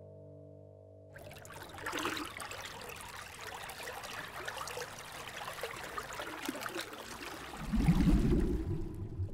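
Trickling, running water starts about a second in as the music stops. Near the end a louder, deeper gurgling surge rises under it.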